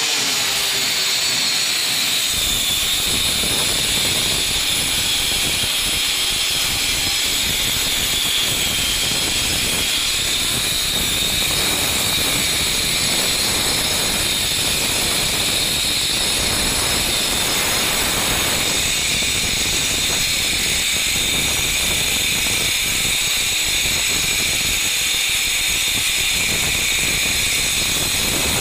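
Handheld electric cutting machine grinding a groove into a masonry bathroom wall, running steadily with a high whine that drops in pitch as the blade bites in about two seconds in. This is the cutting of chases for concealed water pipes.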